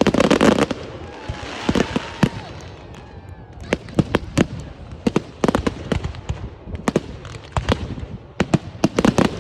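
Fireworks going off: a dense crackling burst at the start, then many sharp bangs and pops, some in quick clusters near the end.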